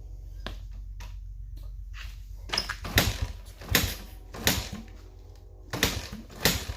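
A 1996 Honda XR100R's single-cylinder four-stroke engine running unevenly on choke, just after a carburetor install, with a steady low hum broken by a series of sharp irregular bursts.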